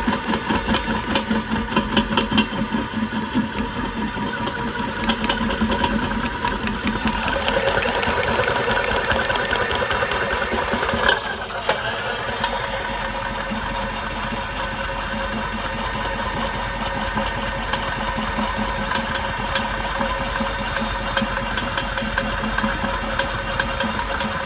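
A motor-driven machine running steadily with a fast rhythmic chatter; its tone shifts for a few seconds about a third of the way through, with a short sharp knock near the middle.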